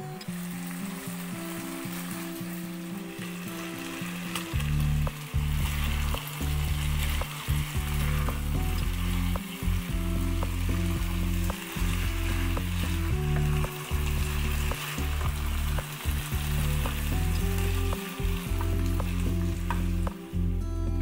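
Beef, potato and red pepper chunks sizzling in a pan of thick soy sauce as a wooden spatula stirs them, with scattered scrapes and clicks. Background music plays throughout, and its loud bass line comes in about four and a half seconds in.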